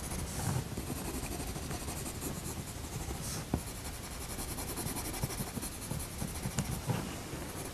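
Coloured pencil scratching across drawing paper as strokes are laid down.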